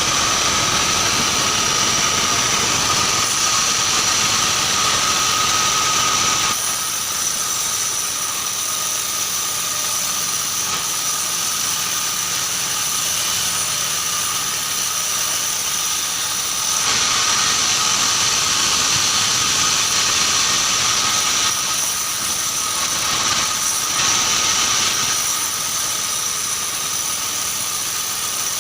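Band sawmill running with a steady high whine, sawing keranji hardwood. The sound is louder and harsher for the first six seconds or so and again for a few seconds past the middle, then eases back in between.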